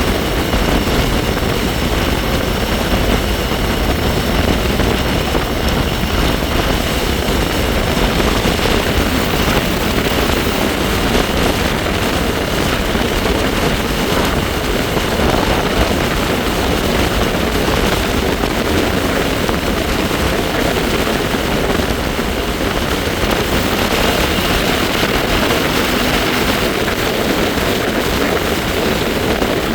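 Wind rushing over the microphone during a bike ride, with the bike's steady high whine underneath.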